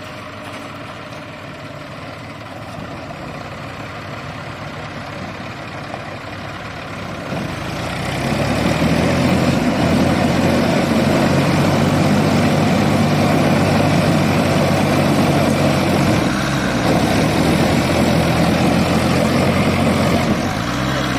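Diesel tractor engines running, then growing much louder about a third of the way in and holding a loud, steady note as they pull under load to free a trolley stuck under a heavy sugarcane load.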